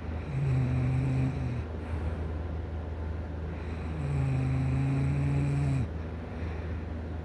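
A sleeping person snoring: two snores a few seconds apart, each a steady low-pitched tone, the second a little longer.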